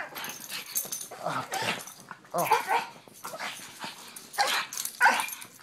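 A pug snorting and snuffling in short, irregular bursts as it licks a man's face at close range, with a few whimpers mixed in.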